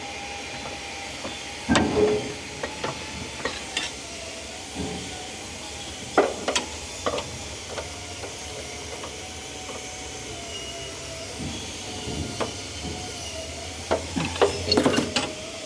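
Scattered metallic clicks and clanks of a spanner working the steering brake adjusting nuts as they are backed off, over a steady hiss and faint hum. The strongest clusters come about two seconds in, around six seconds, and near the end.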